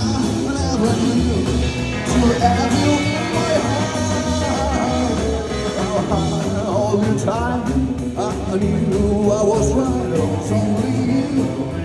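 Rock and roll music playing, with a steady beat, guitar and singing.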